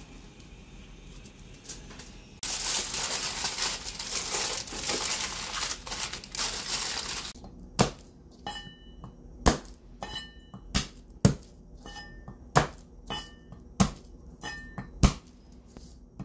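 Dry garlic skins crackling and crinkling for several seconds. Then about a dozen sharp knocks of a kitchen knife coming down on garlic cloves on a wooden cutting board, some with a slight metallic ring.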